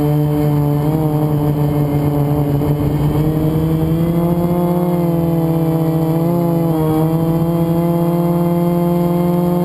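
FPV quadcopter's brushless motors and propellers whining steadily in flight, rising slightly in pitch about halfway through and wavering briefly near the end as the throttle changes. The quad is flying on a motor with a bad bearing.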